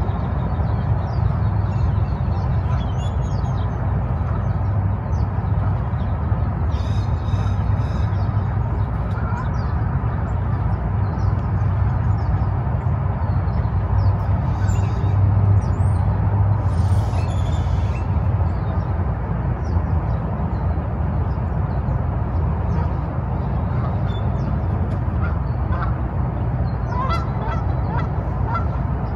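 Waterfowl on a lake calling with occasional honks, over a steady low rumble that is the loudest sound throughout.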